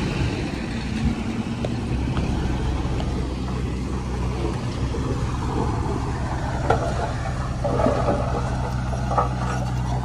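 Komatsu D39PX bulldozer's diesel engine running steadily, with a few short clanks and rattles in the second half.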